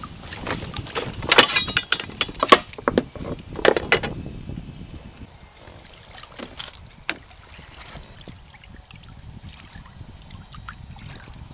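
Sharp knocks and clatter of a landed bass and fishing gear being handled in a plastic kayak, a burst of them in the first few seconds, then only a few light clicks, over a steady low rumble of wind and water.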